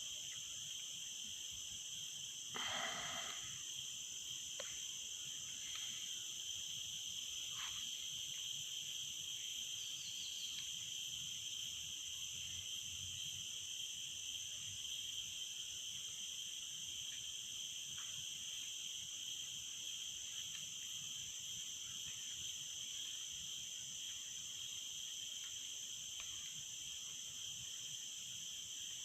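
Steady, shrill chorus of forest insects at several high pitches at once, with a short, louder unidentified call about three seconds in and a few faint chirps after it.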